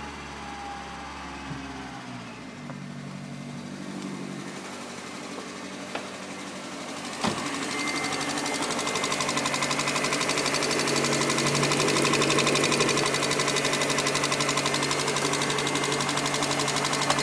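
Opel Vectra B's 1.6-litre 16-valve X16XEL four-cylinder petrol engine idling. It is first heard from inside the cabin as the revs settle, then after a sharp knock about seven seconds in it is heard close up in the engine bay, louder, with a fast, even ticking over the idle.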